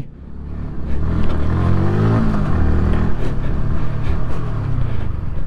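Yamaha motorcycle engine running at low speed, revving up briefly about two seconds in and easing back off as the bike rolls in, with wind rush on the microphone.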